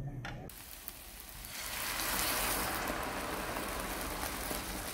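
Kelp and vegetable stock sizzling and bubbling in a hot pot of stir-fried bulgogi and vegetables. It is a steady hiss that starts suddenly about half a second in and grows louder a second later.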